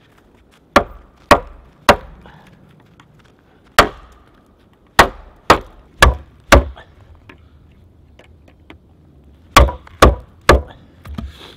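A wooden baton striking the spine of a fixed-blade knife to drive it across a small log (cross batoning). There are eleven sharp wooden knocks in bunches of three, one, four and three, with short pauses between.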